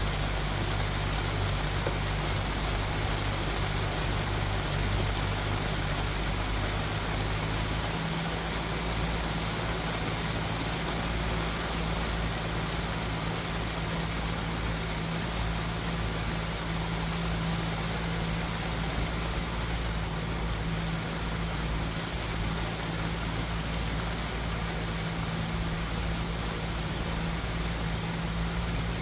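Steady rain falling with an even hiss, over a steady low hum that shifts pitch about seven seconds in.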